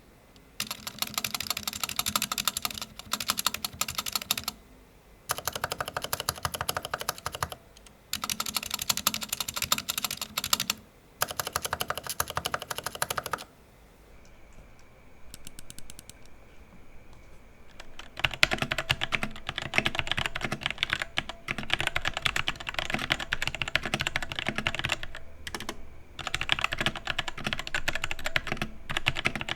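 Typing on a Vortex VX5 60% mechanical keyboard fitted with Outemu Red linear switches and clipped stabilizers: fast runs of key clacks in several short bursts. A quieter pause of a few seconds in the middle is followed by a longer, denser run.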